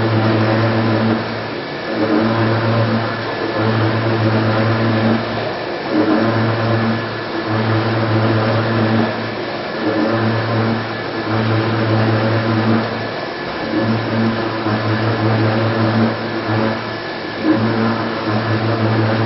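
High-speed CNC milling machine cutting a metal mould block with an end mill: a steady machine hum with several steady overtones over a cutting hiss. The hum breaks off briefly and comes back every second or two.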